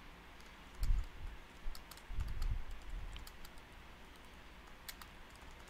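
Typing on a computer keyboard: a run of light, irregular key clicks, with two dull low thumps about one and two seconds in.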